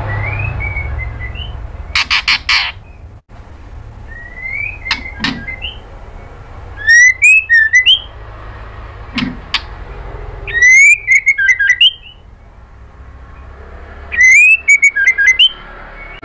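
White-rumped shama (murai batu) singing in bursts a few seconds apart: rising whistled notes broken by fast sweeping notes and sharp clicks. The loudest bursts come about halfway through, around two-thirds of the way and near the end, over a steady low hum.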